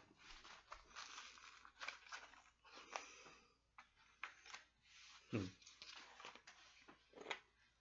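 Faint, irregular scratching, tearing and crinkling as hands pick and pull at packing tape on a heavily taped shipping package that is taped on very tight and will not come open.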